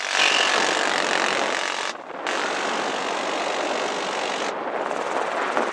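Door-mounted M134 minigun, an electrically driven six-barrel Gatling gun, on a UH-1Y Venom helicopter firing long continuous bursts, broken briefly about two seconds in. The helicopter's engine and rotor noise runs underneath.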